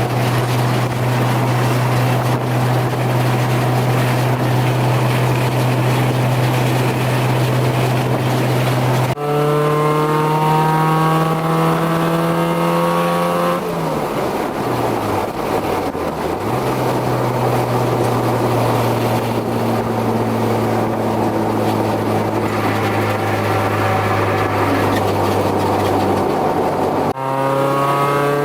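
Car engine during a drive: a steady drone, then about a third of the way in the engine pulls with a climbing note, which falls away sharply as it comes off the throttle, as for a gear change. It settles to a steady cruise, then pulls again with a climbing note near the end.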